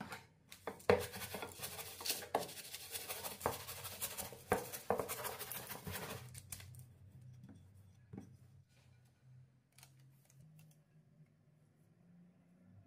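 Dense scraping and scratching of kitchen food preparation, with sharp knocks in it, for about six seconds; then a few light clicks.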